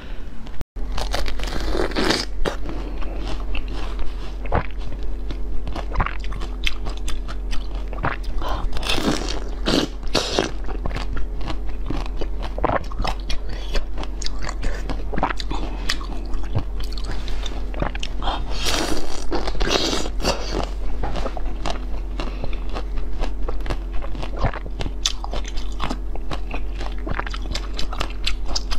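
Close-miked eating of orange-shaped jelly sweets: repeated crunching bites and chewing, sharp crackly clicks with wetter squelchy stretches. Faint steady background music runs underneath.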